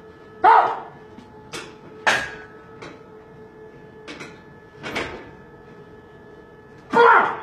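A weightlifter's forceful breaths and grunts, about seven in all, as he works through barbell squat reps. The loudest grunts come about half a second in and near the end, with a faint steady hum underneath.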